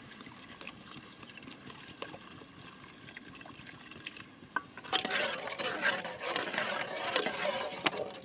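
Water poured from a plastic bottle into a steel pot of masala while a steel ladle stirs it. About five seconds in the stirring gets louder: liquid sloshing, with the ladle clinking and scraping against the pot.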